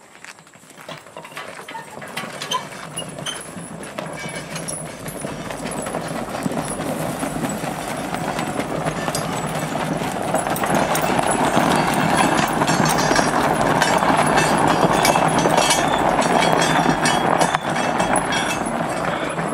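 A team of two mules walking with clopping hooves while dragging a heavy tractor tire over gravel and dirt, a gritty scraping rumble full of small clicks. It grows steadily louder as the team comes close and eases off slightly near the end.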